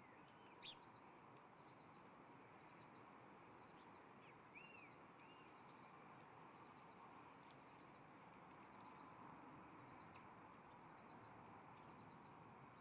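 Faint wild birds chirping over a steady outdoor hiss: a few short arched chirps about four and a half to five and a half seconds in, and a quiet high triple tick repeating about once a second.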